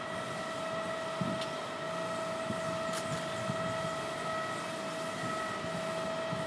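Steady machine hum with a few high, even whining tones over a faint hiss, broken by a couple of faint clicks.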